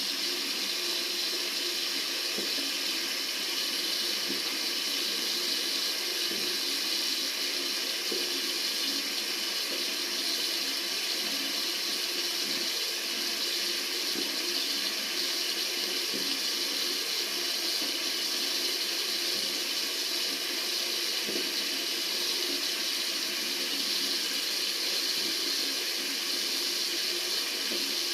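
Tap water running steadily from a faucet into a sink: an even, unbroken rush.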